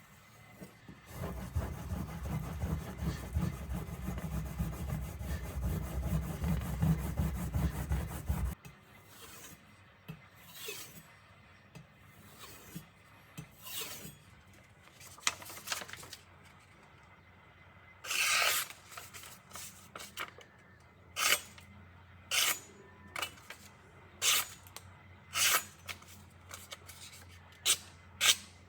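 Nakiri knife blade ground on a whetstone in rapid back-and-forth strokes for several seconds. It stops, then separate short strokes follow about a second apart.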